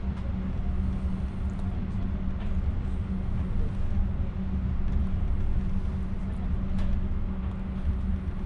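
Electric train running along the track, heard from inside the passenger car: a steady low rumble with a constant hum.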